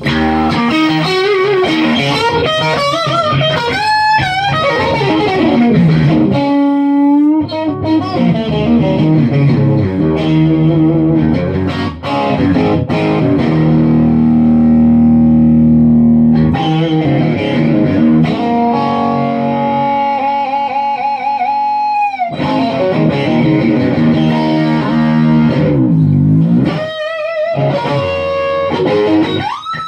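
Electric guitar (a one-piece swamp-ash, neck-through Firebird-style solid body) played through an amplifier with the delay switched off: lead lines with string bends, vibrato and long-sustaining held notes and chords.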